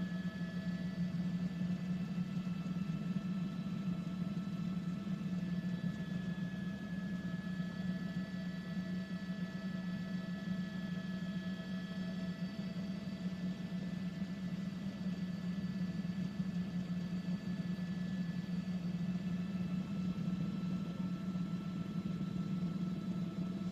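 Steady helicopter cabin drone from a news helicopter, a low hum with several constant higher whines from the turbine and gearbox over an open microphone.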